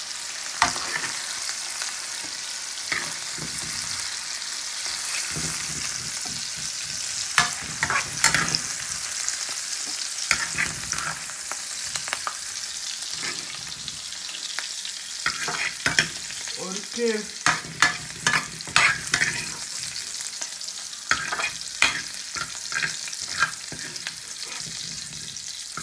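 Mixed vegetables sizzling in a hot frying pan, a steady hiss, while a metal spoon scrapes the pan and clinks against the plate again and again as they are served out.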